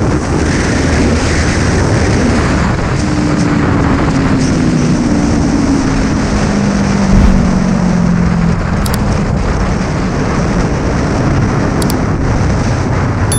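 Heavy wind rush on the microphone of a motorcycle being ridden, over the engine of a Kawasaki Ninja 400 (a 399 cc parallel twin). In the middle the engine note falls slowly and steadily in pitch as the engine slows.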